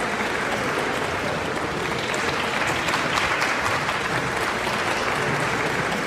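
Crowd applauding steadily.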